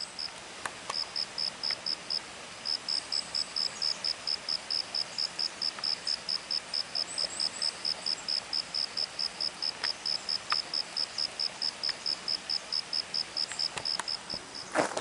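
An insect chirping in a fast, even, high-pitched pulse, about four chirps a second, pausing briefly early on, over a faint steady rush of stream water. A rustle and thump right at the end.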